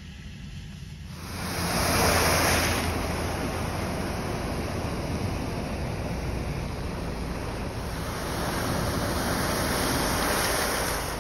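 Cars driving through deep floodwater on a road, their tyres throwing up heavy spray: a steady rushing splash that swells about two seconds in and again near the end, over a low rumble.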